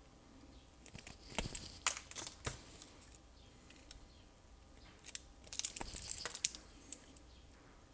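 Faint handling of wire strippers on thin insulated sensor wires: a few sharp clicks as the jaws bite, then a crinkling rustle a couple of seconds later as the plastic insulation is pulled off the copper strands.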